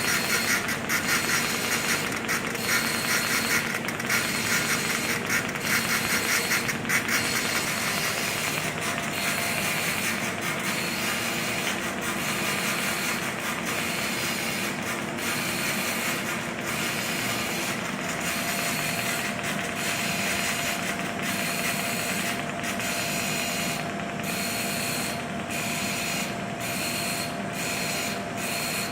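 Polysoude MU IV 115 orbital TIG weld head welding a steel pipe: a steady arc buzz with a rapid, rattling pulse, which smooths out after about seven seconds, and a steady hum-like tone that joins in about two-thirds of the way through.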